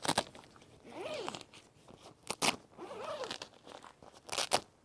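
Oliezi AirTent 60 Lite's fabric rustling and crinkling as it is handled, with a few sharp clicks, two of them close together about two and a half seconds in and two more near the end.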